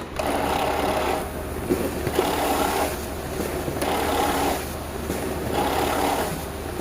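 HP Color LaserJet E75823dn's automatic document feeder running with a noisy feed roller while scanning: a steady mechanical whirr that swells and eases in a regular cycle about every one and a half to two seconds. The title puts the noise down to a faulty ADF feed roller.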